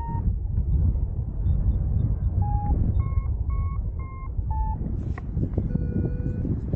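Wind rushing over the microphone in flight, with a paragliding variometer beeping: a run of short beeps, a little over two a second and shifting in pitch, its climb signal, then one longer, lower steady tone near the end, its sink signal.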